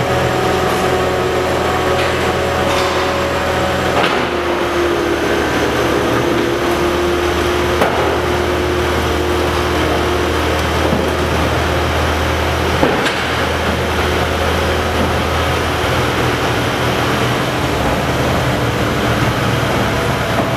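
Steady, loud machinery din on a Herrenknecht tunnel boring machine's backup gantry: a deep hum with several steady tones over a hiss of ventilation and electrical equipment, with a few sharp metallic knocks about four, eight and thirteen seconds in.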